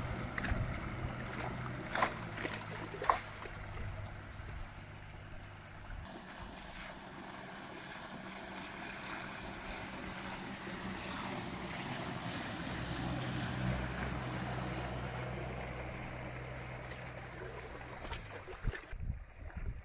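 Small outboard motor running steadily as it pushes a light plywood boat across the water, with the wash of the hull and wind on the microphone. The low motor hum fades out around six seconds in and comes back for a while before dropping away near the end.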